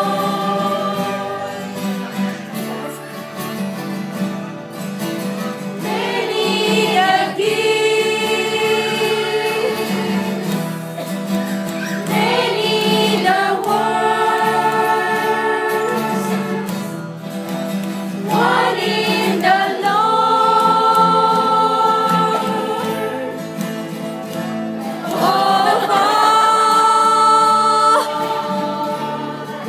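A choir singing in rehearsal: long held notes in phrases, a new phrase entering about every six seconds.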